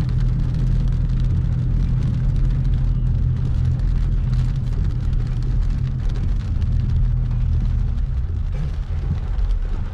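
Car engine and road noise inside the cabin, a steady low hum, with rain hitting the car.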